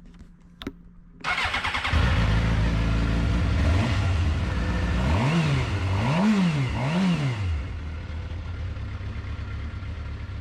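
A 2006 Suzuki GSX-R750's inline-four engine starting up after a click: it catches about a second in and runs. It is blipped up and down three times in quick succession, then settles into a steady idle.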